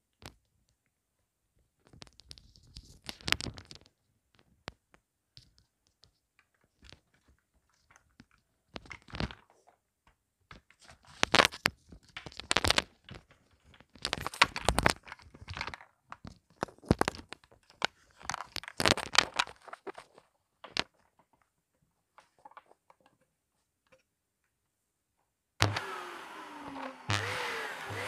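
Scattered crunching, scraping and thunks of dry granules and the vacuum being handled on a hard floor, in bursts with pauses. About 25 seconds in, a Dyson upright vacuum cleaner switches on suddenly and runs.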